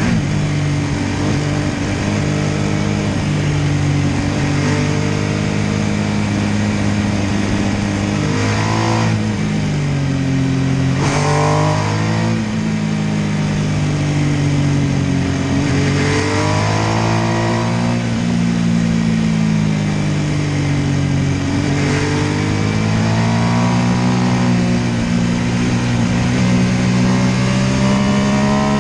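MV Agusta F3 800 motorcycle's three-cylinder engine running under way, its revs repeatedly climbing and then dropping sharply as it accelerates and shifts or rolls off, about five times.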